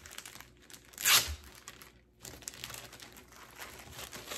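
Thin clear plastic bag crinkling and rustling as it is handled and pulled off a boxed kit, with a louder crackle about a second in and a brief pause near the middle.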